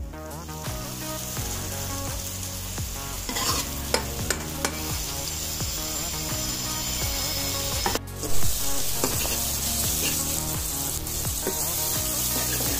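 Chopped onions sizzling in hot butter in a steel kadhai while being stirred with a metal ladle, with a few ladle taps against the pan. The sizzle surges louder for a moment about eight seconds in.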